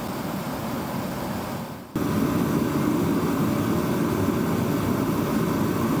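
Sealey paraffin/diesel space heater running steadily, its fan and burner making a continuous rushing noise. The noise dips briefly about two seconds in and then comes back louder.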